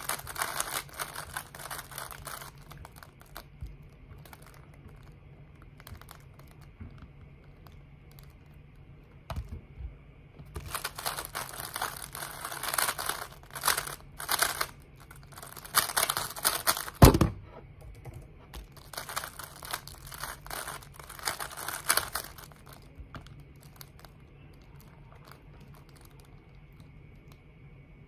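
Plastic 3x3 speed cube being turned at speed, in bursts of rapid clicking and clattering of its layers, with quieter pauses between. A single hard thump about seventeen seconds in.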